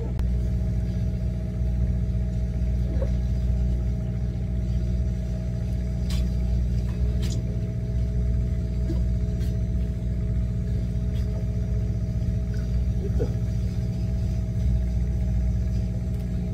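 Fishing boat's engine running with a steady low hum, and a few faint clicks on deck.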